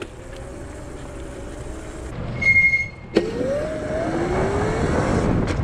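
Razor MX500 electric dirt bike riding along, its motor and chain drive whining over a low rumble; about three seconds in the whine rises steadily in pitch as the bike speeds up. A short high beep sounds a little before that, followed by a sharp click.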